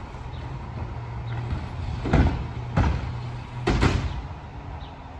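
Autocar WXLL McNeilus front-loader garbage truck running with a steady low engine hum, broken by a few loud bangs about two, three and four seconds in.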